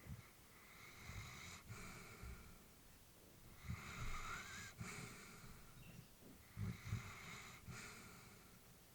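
Elderly Labrador retriever breathing slowly in her sleep: three faint breaths, each about a second long and about three seconds apart, with soft low puffs beneath the breath noise.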